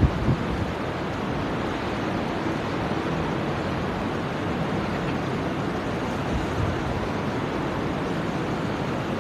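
Steady rushing noise of electric wall fans running, their air buffeting the microphone, with a brief knock just after the start.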